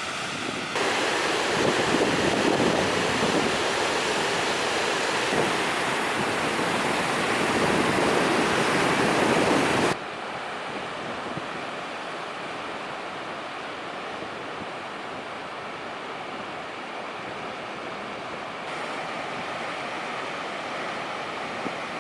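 Ocean surf washing on the coast, with wind. The sound comes in cut clips: a louder, surging stretch, then from about ten seconds in a quieter, steady wash.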